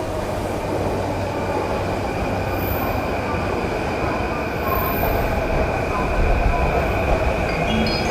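Electric commuter train pulling into the platform: rumbling wheels and running gear, with a steady high brake or wheel squeal, and short rising motor tones near the end. Wind buffets the microphone.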